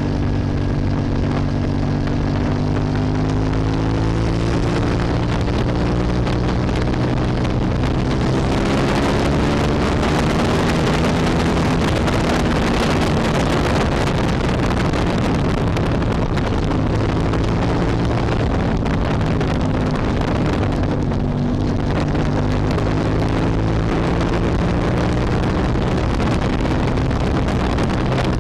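Hyosung GT250 Comet's V-twin engine running under way, its note slowly rising and falling with road speed. Wind rushes over the microphone, loudest partway through.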